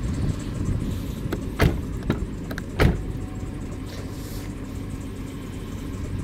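2002 Oldsmobile Bravada's engine idling steadily after a cold start, heard from beside the car. A few sharp knocks sound over it, the two loudest about a second apart near the middle.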